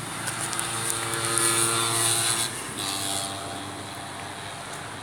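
A motor's steady drone that swells for about two seconds and then fades, followed briefly by a second, higher hum about three seconds in.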